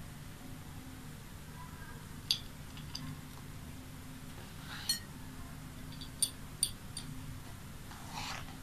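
Pearl beads clicking lightly against a plate as fingers pick them up for threading: about six small, separate clinks, with a short rustle near the end, over a steady low hum.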